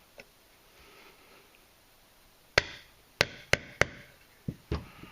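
Sharp metal taps starting the small latch pin into an AR-15 charging handle: four loud taps a fraction of a second apart, then two lighter ones near the end.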